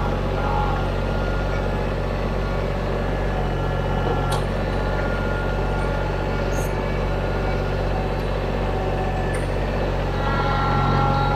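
TYM T313 sub-compact tractor's diesel engine running steadily as the loader works, with a few faint ticks over it.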